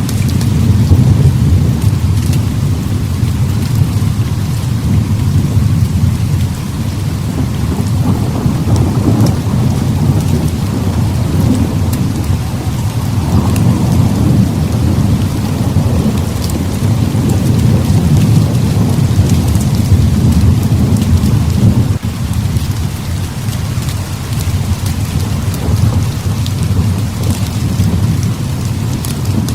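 Heavy rain pouring steadily, with a low, continuous rumble of thunder that swells and eases.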